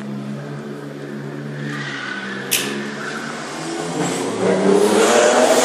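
Race car engine running steadily, then revving harder and rising in pitch as the car accelerates through the course about four seconds in, with tyre squeal over it. A single sharp click about two and a half seconds in.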